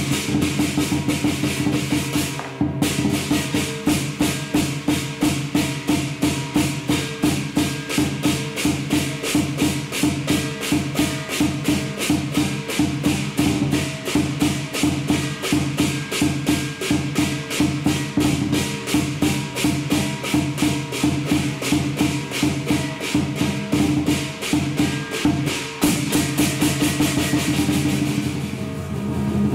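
Lion dance percussion playing: a big drum, crashing cymbals and a gong keep a fast, steady beat, easing off briefly near the end.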